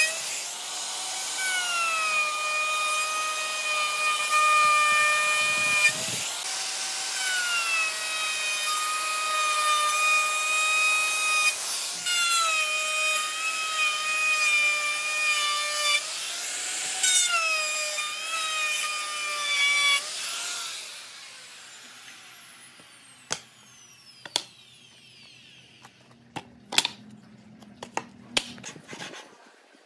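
Electric wood router running at high speed and cutting grooves in a pine board, its steady whine sagging in pitch several times as the bit bites into the wood. It is switched off about two-thirds through and winds down with a falling whine, followed by a few sharp wooden knocks and clicks as notched wood pieces are handled.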